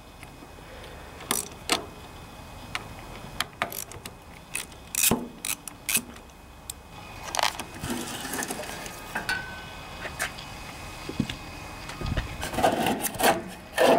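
Hand tool clicking and clinking on a riding mower's battery terminal bolts as the cables are undone, with scattered knocks and scrapes as the battery is lifted out of its tray.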